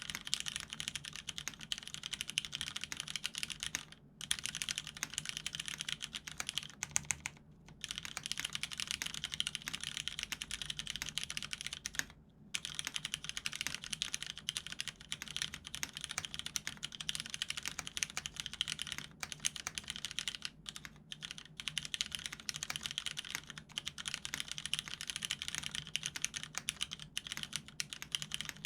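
Continuous fast typing on a custom mechanical keyboard with lubed vintage Cherry MX Brown tactile switches on an aluminium plate and Cherry doubleshot-style dye-sub keycaps, with brief pauses about 4, 7.5 and 12 seconds in.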